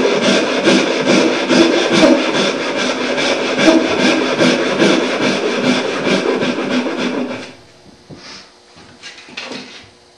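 Handsaw cutting down the tail lines of a hand-cut dovetail in an upright board, rapid even rasping strokes. The sawing stops abruptly about seven and a half seconds in, leaving a few faint knocks of the board being handled.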